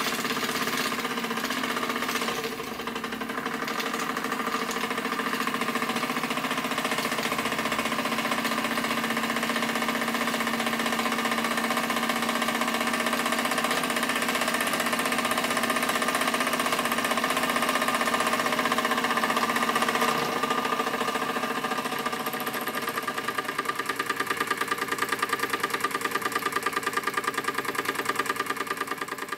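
Wilesco D16 toy live steam engine running fast: a rapid, steady chuffing clatter from its cylinder and running gear, with steam hissing. Over the last several seconds the beats stand out more distinctly.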